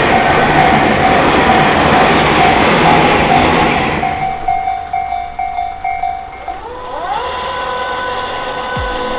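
A train passing over a Japanese level crossing while the crossing's warning bell rings in a repeating tone. The train noise fades about four seconds in, and the bell stops about two and a half seconds later. Then a whine rises and holds steady.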